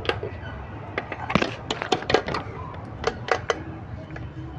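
Steel hammer tapping on the gears and bearings of a tractor PTO gearbox during reassembly: a string of about ten sharp metallic knocks, several in quick succession, bunched between one and three and a half seconds in.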